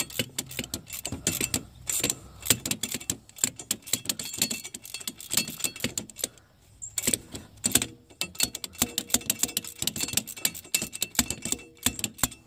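Hand ratchet clicking in quick runs of strokes as an exhaust manifold bolt or stud is backed out, with a brief pause about six seconds in.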